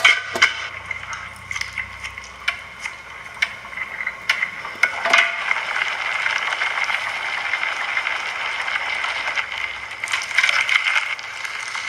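Cooking sounds: a utensil clicking and scraping against a pan or bowl over a steady hiss, with the clicks thickest in the first few seconds.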